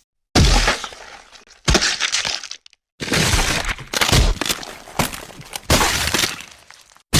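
Crash sound effects: sudden smashing impacts, each trailing off into clattering, breaking debris. They come as three separate clips split by brief silences, and the last and longest clip holds several heavy hits in a row.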